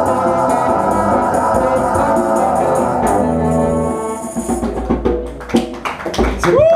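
Live band music playing the song's instrumental ending; about four seconds in the full sound breaks off into a few separate percussive strikes as the song finishes.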